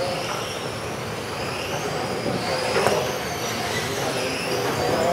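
Several electric RC racing cars whining around the track, their motor pitch rising and falling as they accelerate and brake, over a steady hiss of tyres and the hall's echo.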